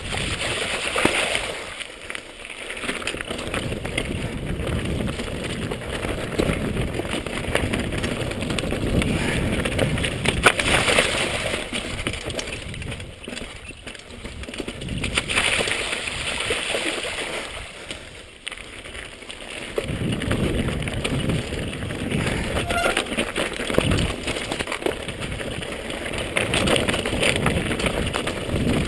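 Mountain bike riding fast down a rocky dirt trail: tyres crunching and rolling over rock and dirt, and the bike rattling over the bumps. The noise eases briefly about two seconds in and again a little past the middle.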